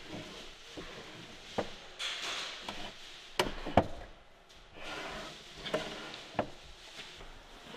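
Solid-walnut drawers of a handmade console sliding open and shut by hand, wood rubbing on wood, with a few sharp knocks as they close.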